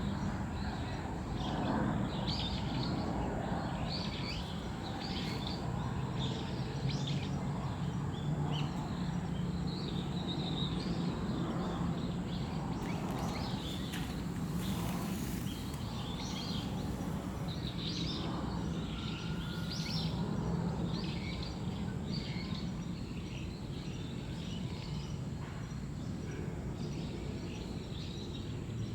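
Birds chirping, many short calls overlapping throughout, over a steady low background hum.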